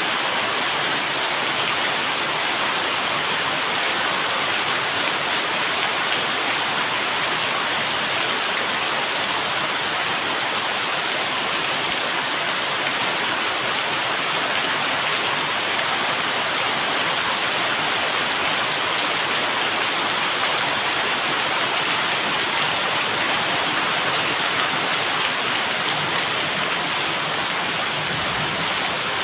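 Rain falling steadily: an even, unbroken hiss of rainfall, with no thunderclaps.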